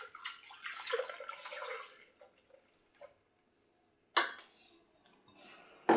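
Milk pouring from a plastic jug into a Thermomix mixing bowl of melted butter, a splashing stream that stops about two seconds in. A single sharp knock about four seconds in.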